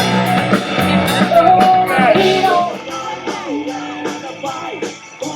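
Live rock band playing through a stage sound system, a singer holding and sliding notes over drums and bass; the music gets quieter about three seconds in.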